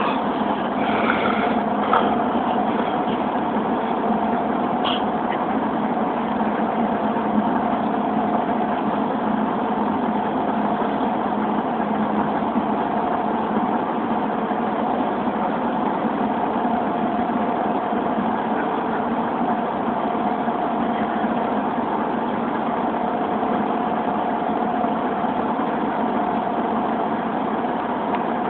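Steady drone of a van's engine and road noise heard from inside the cabin, with one constant hum and no change in pitch.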